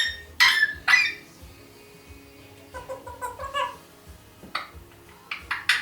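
African grey parrot calling: three short, sharp squawks in the first second, a soft run of quick mumbled chatter about three seconds in, and another burst of quick squawks near the end.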